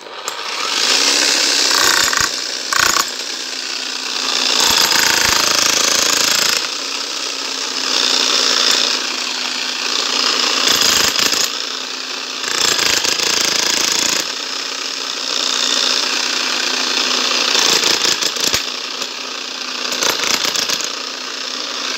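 A 12 kg electric demolition hammer with a pointed chisel bit is breaking a concrete slab. It hammers continuously, its motor hum steady underneath, and grows louder and quieter in stretches of a few seconds.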